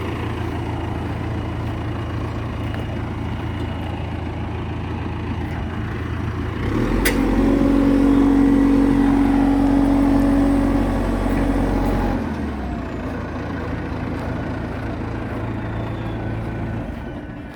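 1998 JCB backhoe's diesel engine running at idle, then working harder and louder for about five seconds from roughly six and a half seconds in, with a sharp click at the start of that stretch, before settling back to idle. It quietens just before the end.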